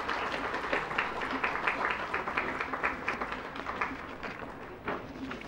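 Spectators applauding, the clapping thinning out and fading near the end.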